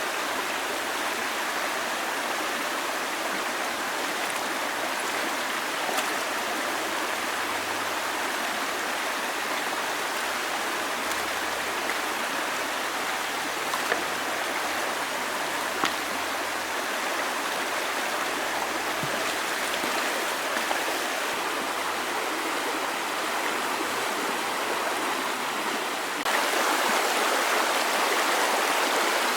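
Steady rush of flowing water, with a few faint clicks; it gets abruptly louder near the end.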